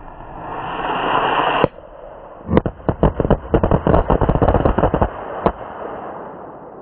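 Firework set off: a hiss swells for about a second and a half and cuts off sharply. A moment later comes a rapid string of firecracker bangs lasting about three seconds, ending with one last separate bang.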